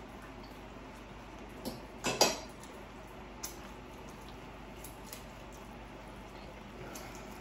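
Eating utensils clinking against dishes a few times, with the loudest clatter about two seconds in.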